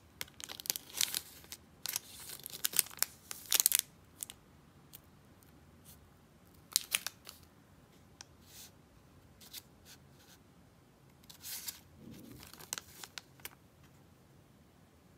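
Thin plastic candy wrapper crinkling and rustling in several bursts as a trading card is pulled out of it.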